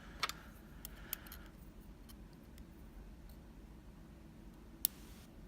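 Small, faint clicks of lock pins and tools being handled while a euro cylinder is disassembled, with one sharper click near the end followed by a short scrape.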